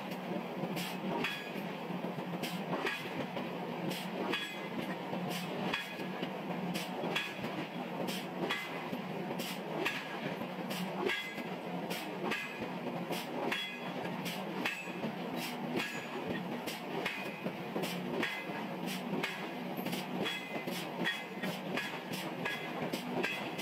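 Heavy forging machinery running: a steady hum with frequent sharp metallic clanks and knocks at irregular intervals.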